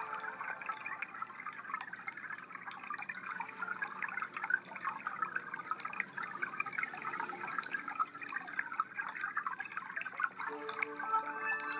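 Aquarium water trickling and bubbling: a busy, irregular patter of small drips and bubbles. Sustained drone music tones come back in near the end.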